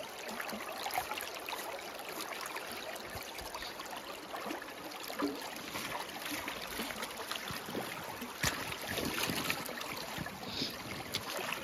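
Shallow creek running steadily over rocks and around a deer carcass lying in it, with a few short splashes and knocks, the sharpest about eight and a half seconds in.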